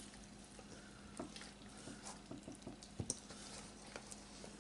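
Faint wet squishing and scattered small clicks of hands packing raw sausage, potato and carrot stuffing into a pig's stomach in a stainless steel bowl.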